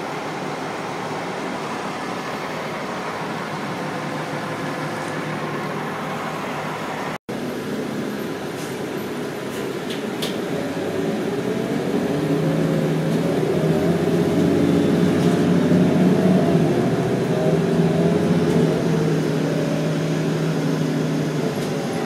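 Transit bus engine: first a steady running noise beside the bus, then, after a cut, a droning hum heard from inside the cabin. The hum grows louder about halfway through as the bus pulls away and picks up speed, then holds.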